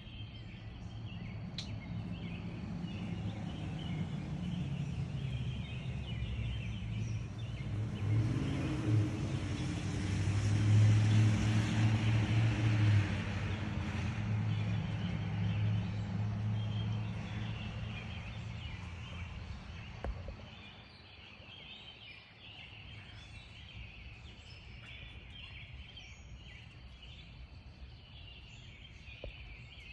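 Birds singing in the pre-dawn chorus, short chirps throughout, while a passing vehicle's engine and tyres swell to a peak about ten seconds in and fade away by about twenty seconds in.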